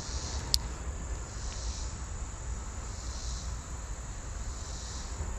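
Insects buzzing in swells that rise and fade every second or two, over a steady low rumble, with one sharp click about half a second in.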